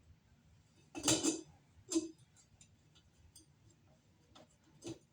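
Ceiling-fan light fixture being unscrewed by hand, its glass shade and metal holder clinking and ticking. A rattling clink comes about a second in, a sharper one just after, light ticks between, and one more click near the end.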